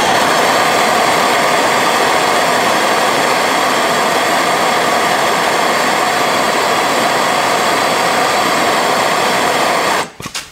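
Hand-held propane torch burning with a steady rushing hiss as its flame heats a seized steel bolt in an aluminum engine front; the sound stops suddenly near the end as the torch is shut off.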